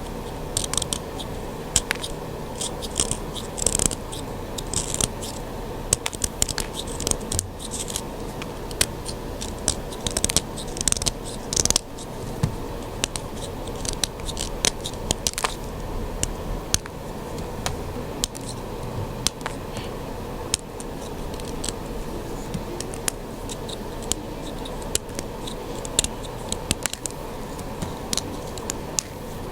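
Purple sidewalk chalk being shaved into bits: a dense, irregular run of crisp scrapes and crunches, over a faint steady hum.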